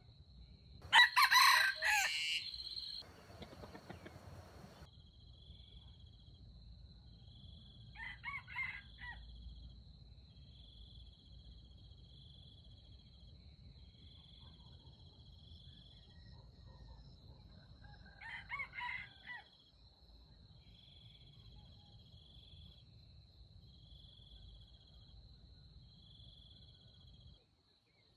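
Red junglefowl rooster crowing loudly about a second in, then two fainter crows about 8 and 18 seconds in. Under it runs a steady high insect buzz with cricket chirps repeating about every two seconds.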